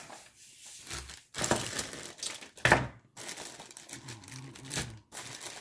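Plastic bags of miniatures crinkling and rustling as they are handled, with a few sharper crackles.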